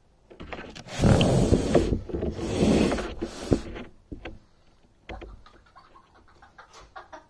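Handling noise from the phone: cloth rubbing right on the microphone gives a loud rustling scrape for about three seconds, starting about a second in. Scattered light taps and knocks follow.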